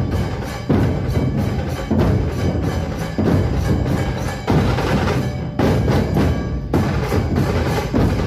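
Percussion-driven music with a heavy accented beat that comes back about every second and a quarter.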